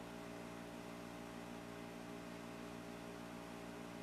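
Steady electrical mains hum from a model railroad power pack (transformer) that is switched on, an unchanging buzz of several even tones over a faint hiss.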